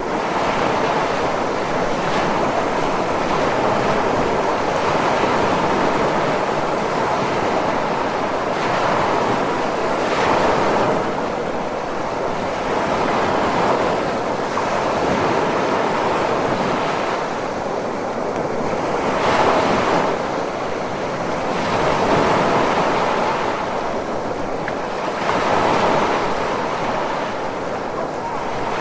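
Ocean waves breaking and washing in a continuous surf, swelling in loudness every few seconds.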